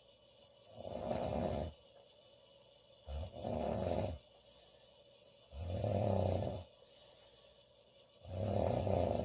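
A sleeping woman snoring four times, each snore about a second long and spaced about two and a half seconds apart, with quiet breathing between them.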